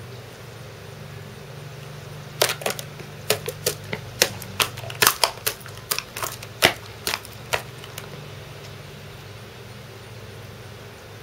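Flurry of about twenty sharp hammer blows on a plastic medicine bottle lying on a concrete sidewalk, irregularly spaced, starting a couple of seconds in and stopping after about five seconds.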